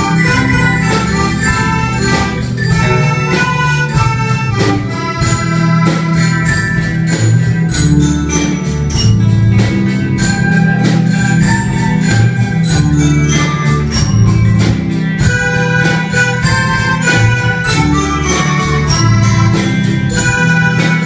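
School ensemble of many melodicas playing a pop song's melody in held, reedy notes, with recorders, acoustic guitars and a keyboard accompanying over a steady beat.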